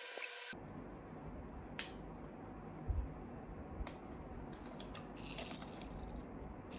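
Small objects being handled on a desk: a few scattered light clicks and knocks, a low thump about three seconds in, and a brief rustle around five seconds, over a faint low hum.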